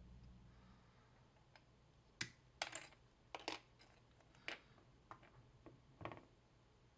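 Small plastic model-kit parts clicking and tapping together as they are handled and fitted: a string of irregular sharp clicks, some in quick pairs, starting about two seconds in.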